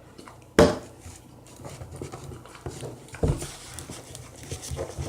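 A sharp knock about half a second in, the loudest sound, and another a little after three seconds. Between them come small clicks and rustles from slime-making containers and utensils being handled on a table.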